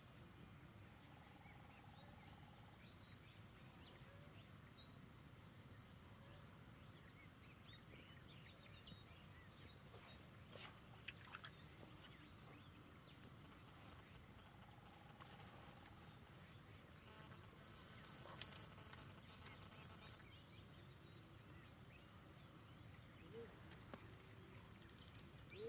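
Near silence: faint outdoor ambience with scattered faint bird chirps and a rapid pulsing trill from a bird or insect through the middle.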